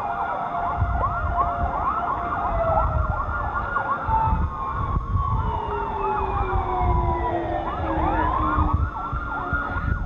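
Several emergency sirens sounding at once: fast yelping sweeps in the first half, then slower wails that fall and rise again near the end. Low rumbling noise runs underneath.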